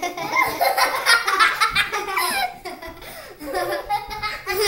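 Young girls laughing, high-pitched and in quick peals, with a quieter stretch just after the middle.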